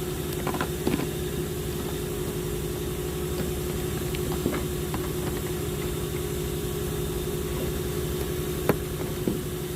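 An engine idling steadily, a continuous low drone with an even pulse. A few short sharp clicks and knocks sound over it, the loudest a single sharp knock near the end.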